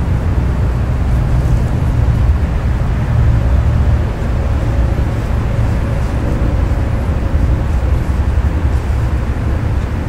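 Steady low outdoor background rumble, with a faint thin hum joining about halfway through.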